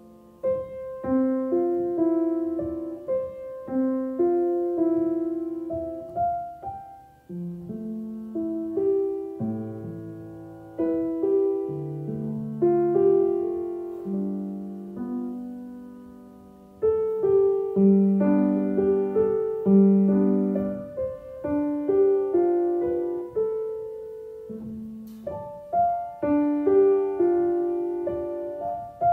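Background piano music: a slow, gentle melody of single notes and chords, each note struck and left to ring.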